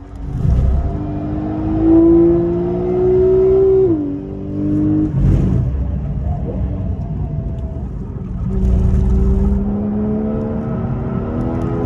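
Porsche 911 GTS flat-six heard from inside the cabin, pulling hard with its pitch rising, then a quick upshift drops the revs about four seconds in. The engine eases off through the middle and pulls up through the revs again toward the end.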